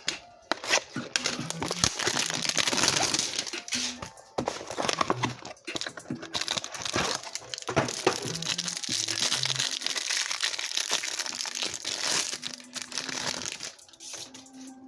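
Plastic wrapping of a trading-card pack or hanger box being torn open and crumpled in the hands: a long stretch of dense crinkling and crackling that stops about a second before the end. Faint background music plays under it.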